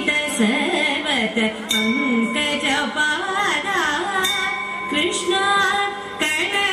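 Carnatic music for a thillana: a woman's voice singing a gliding, ornamented melody over instrumental accompaniment.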